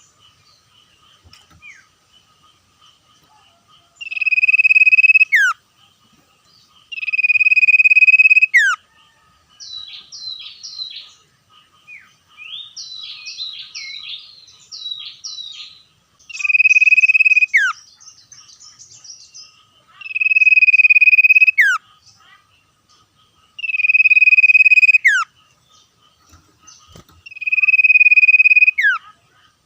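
Common iora singing: six long, steady, loud whistles, each ending in a quick downward flick. From about a third of the way in there is a stretch of quieter, rapid chattering notes between them.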